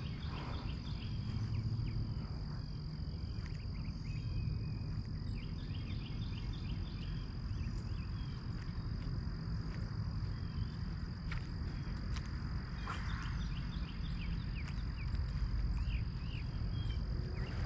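A chorus of insects and frogs: a steady high insect trill throughout, with short runs of quick chirping calls coming and going several times, over a steady low rumble.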